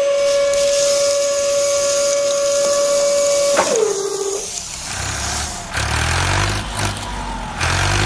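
Small electric motor whining at a steady high speed, then abruptly dropping in pitch and winding down to a stop about four seconds in. Lower-pitched tones take over in the second half.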